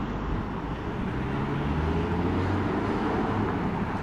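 Street traffic: a steady rush of road noise with a low vehicle engine hum that grows louder through the middle and eases off near the end.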